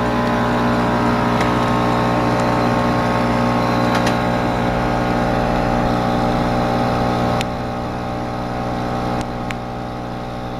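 Laser cutting machine running with a steady hum, with a few faint clicks. The hum drops slightly in level about seven seconds in.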